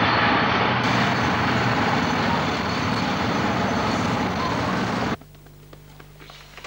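Loud, steady vehicle noise that cuts off suddenly about five seconds in, leaving a quiet room with a faint steady hum and a few light clicks.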